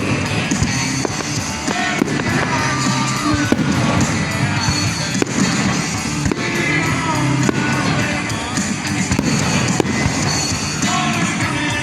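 Fireworks bursting, with repeated bangs and crackles, over loud recorded music with singing played nearby.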